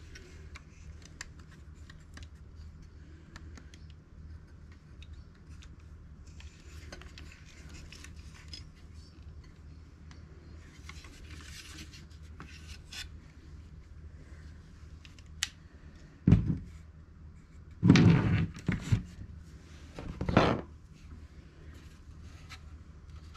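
Hands handling the plastic cabinet and chassis of a vintage National Panasonic transistor radio: small clicks, scrapes and rubbing, then a few loud knocks and clatters of the parts about two-thirds of the way through.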